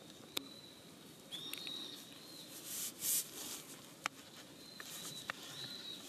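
Quiet woodland ambience: a faint steady high whine, a few sharp clicks, and a short burst of high hiss about three seconds in.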